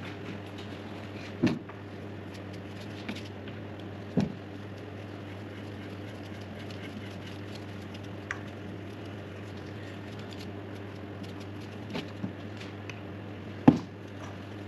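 Steady low hum of a milling machine in a machine shop, broken by a few sharp clicks and knocks, the loudest near the end.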